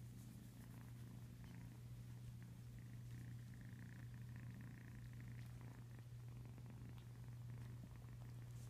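A ten-week-old kitten purring steadily, the contented purr of a kitten being held or snuggling.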